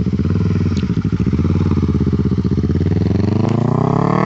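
Yamaha MT-03 motorcycle with a loud aftermarket exhaust, running at a steady note that then climbs in pitch from about three seconds in as the bike accelerates.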